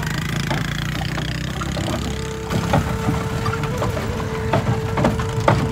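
Horse cart on a dirt road: the horse's hooves knock irregularly and the cart rattles, from about two and a half seconds in. Under it a motorbike engine keeps up a steady hum.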